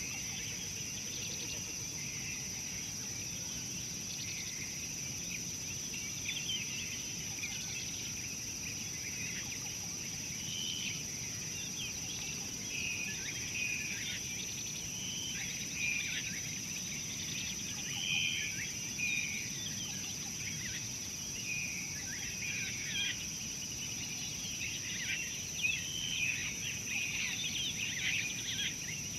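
Birds chirping and calling in many short notes, sparse at first and more frequent after a few seconds, over a steady hiss and a constant high whine.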